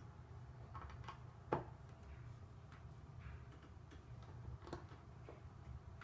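Plastic Lego bricks clicking and tapping as 1x2 Technic bricks are handled and pressed onto a plate. There are scattered light clicks, with one sharper click about a second and a half in, over a low steady hum.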